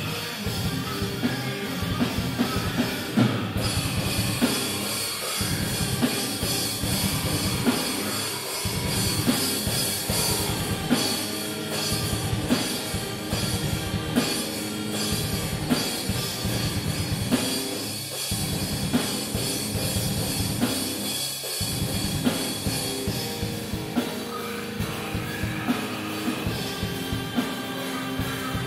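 Rock band playing live: electric guitar over a full drum kit, with a vocalist on microphone.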